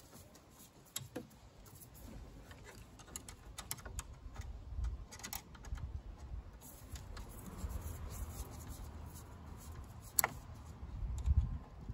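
Screwdriver working a hose clamp loose on a power steering hose: scattered small metallic clicks and scrapes, with one sharper click about ten seconds in.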